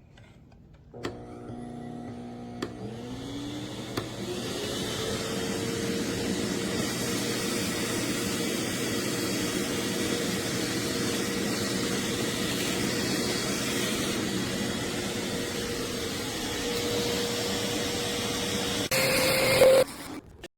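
Dog grooming vacuum motor starting up. Its whine rises for about two seconds, then it runs steadily with a rush of air. It gets louder briefly near the end and then cuts off.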